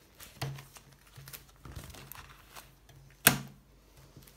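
Plastic photocard sleeves rustling and crinkling as the pages of a D-ring binder are turned by hand, with scattered small clicks and one sharp clack a little over three seconds in.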